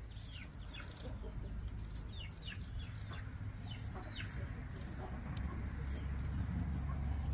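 Chickens calling: a scattered run of short, falling, high-pitched calls, over a steady low hum.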